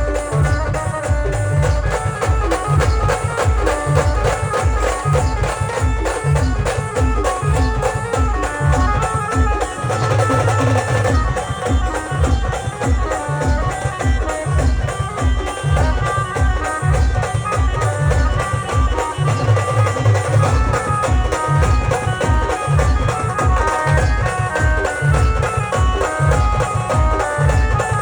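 Indian wedding-style band playing a folk 'pavri' tune: a melody line over a steady, heavy drumbeat.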